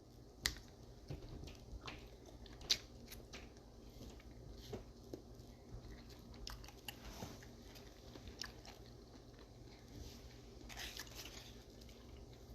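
A person eating, with faint scattered crunches and mouth clicks from chewing; the sharpest crunches come about half a second in and just under three seconds in.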